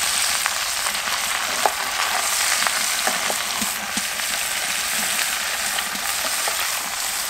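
Hot oil sizzling in a cast-iron Dutch oven as potatoes, onions and tomatoes are stirred through it with a wooden spoon: a steady hiss with a few scattered knocks of spoon and vegetables against the pot.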